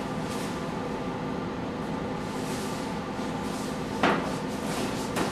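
A glass spice jar knocking once on a table about four seconds in as it is set down, with a lighter knock near the end, over a steady background hum and faint rustling.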